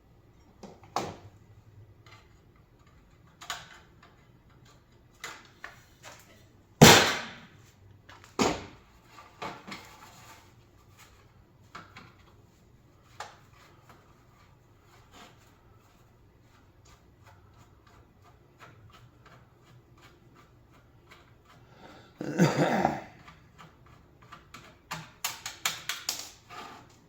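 Intermittent metal clinks and knocks from hand-dismantling a commercial coffee burner, screws being backed out and parts handled. Two sharp knocks about a quarter of the way in, a longer clatter about three-quarters through, and a quick run of small clicks near the end.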